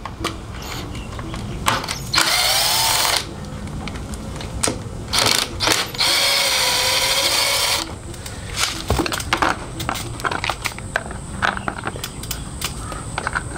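Cordless drill-driver with a T30 Torx bit backing out the fork guard bolts on a motorcycle's front fork: two runs, about a second and then nearly two seconds, the motor's whine dipping and rising in pitch. Scattered light clicks and knocks in between and afterwards.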